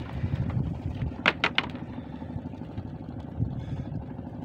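An engine runs with a steady low throb, and two sharp clicks come about a second and a half in.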